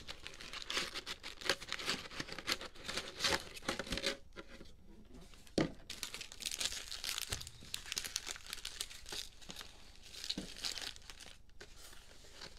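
Cellophane-wrapped trading card packs crinkling as a stack of them is lifted out of a cardboard box and handled, with the box rubbing and knocking on the table. There is a brief lull about four seconds in, then a sharp knock.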